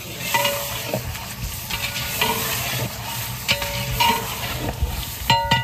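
A long metal stirrer scraping and stirring thick chicken and potato curry in a metal degh, the curry sizzling. The pot rings briefly several times as the stirrer hits its sides, loudest near the end.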